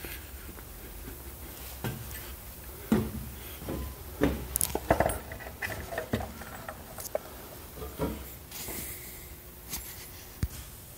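Scattered metal clinks, knocks and rubbing as an F4 magneto is handled and fitted onto its mounting on the tractor engine. The clatter is busiest a few seconds in, with one sharp click near the end.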